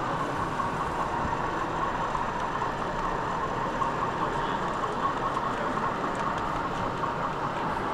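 Steady background noise of a busy exhibition hall: many people talking indistinctly, blended into a continuous, even din with no single sound standing out.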